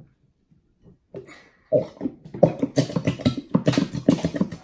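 A squeeze bottle of clear Elmer's glue held upside down and squeezed over a glass bowl, sputtering in quick, irregular buzzy spurts as air is forced out with the glue. It starts after nearly two seconds of quiet.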